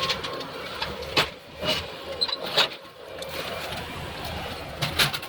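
Heavy equipment engine running steadily during demolition of a mobile home, with several sharp bangs and clatters of debris, about four in all.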